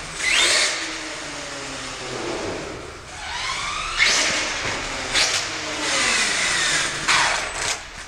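HPI Savage SS radio-controlled monster truck's small nitro engine revving up and down as it drives, in high whines that rise and fall in pitch about five times.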